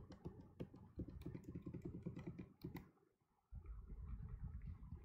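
Faint, rapid clicking of typing on a computer keyboard for about three seconds, then a low rumble near the end.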